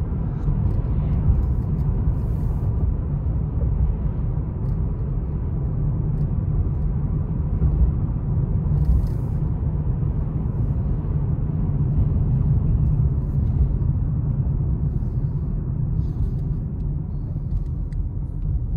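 Steady low road rumble inside a moving car's cabin: tyre and engine noise on a wet road.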